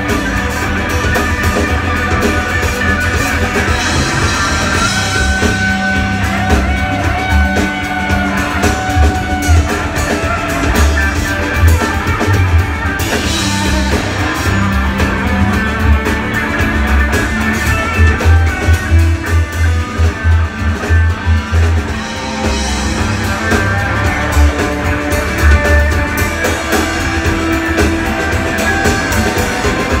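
Live rock band playing: electric guitar lines over bass and a drum kit, heard from the crowd in the room.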